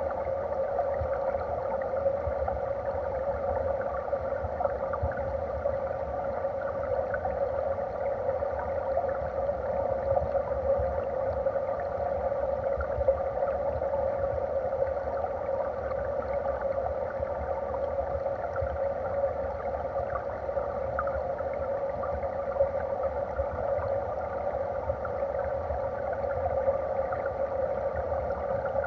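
Stream water flowing, heard underwater: a steady, muffled rush with a low rumble beneath and a few faint ticks.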